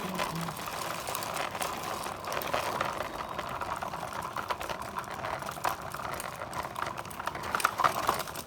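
Toy RC cars running: small electric motors and plastic gearboxes whirring, with a fast crackly clicking and rattling throughout.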